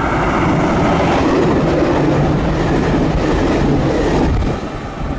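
Diesel limited-express train running along the track, heard from on board: steady running noise of wheels on rail and engine, easing a little near the end.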